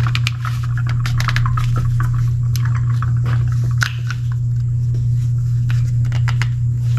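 Repeated plastic clicks and scrapes as the plastic locking ring on a New Holland TS110's fuel filter is worked at; the ring is stuck and won't come off. A steady low hum runs under it throughout.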